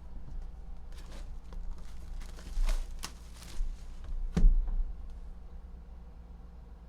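Handling noises: scattered light rustles and knocks, with one louder thump about four and a half seconds in, then quieter.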